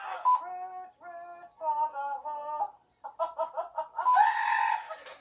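A short tune of four held, steady-pitched notes, each about half a second long. Choppier pitched sound follows after a brief gap, then a louder, rougher outburst about four seconds in.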